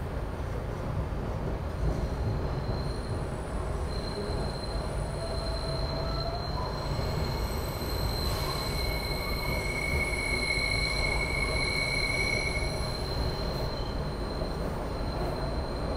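SEPTA Broad Street Line subway car (Kawasaki B-IV) running, heard from inside the car: a steady rumble with a high-pitched steel wheel-on-rail squeal that sets in about two seconds in, grows strongest in the middle with a second, lower squeal tone, and fades near the end.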